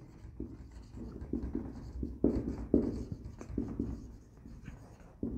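Handwriting: a string of short strokes on a writing surface, a few louder ones about two to three seconds in.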